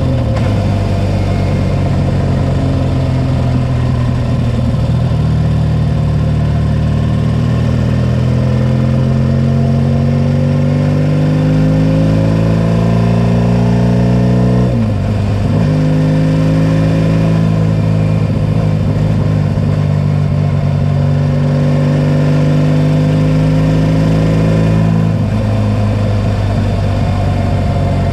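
Racing sidecar outfit's engine heard from on board at full race pace: the engine note climbs slowly over the first half, cuts out briefly for a gear change about halfway, holds steady at high revs, then drops as the throttle is eased a few seconds before the end.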